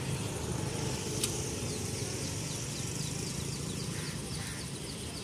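Steady low rumble of road traffic, with a run of short high falling chirps repeating about four times a second, starting about a second and a half in, and a single sharp click about a second in.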